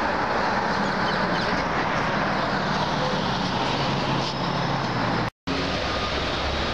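Steady city street noise, with a low traffic rumble and general hubbub. It cuts out completely for a split second about five seconds in, then resumes.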